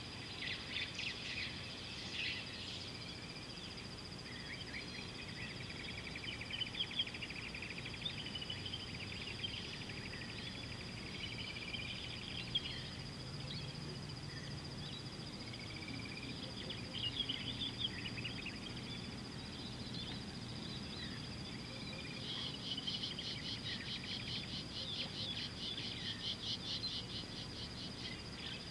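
Bush ambience: a steady high-pitched insect drone, with several birds chirping, warbling and trilling over it, including a fast rattling trill in the last few seconds.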